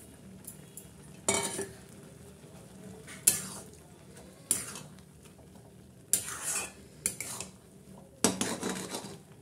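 A metal spatula scraping and knocking against a kadai as instant noodles and fried vegetables are stirred and tossed together: about six separate scrapes, a second or two apart.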